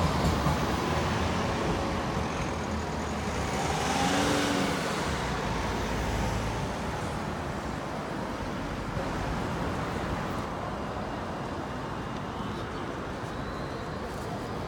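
Street traffic: a low rumble fading over the first couple of seconds, a vehicle passing about four seconds in with a brief rising-then-falling whine, then a steady traffic hum.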